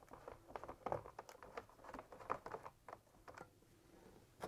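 Screwdriver turning out the small mounting screws of a fridge evaporator fan, heard as a run of faint, irregular small clicks and ticks, with a sharper click near the end.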